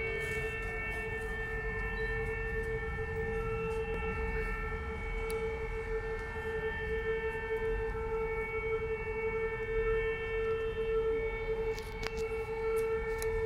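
Civil defence siren sounding one long steady tone: the W-hour alarm that marks the outbreak of the Warsaw Uprising each 1 August.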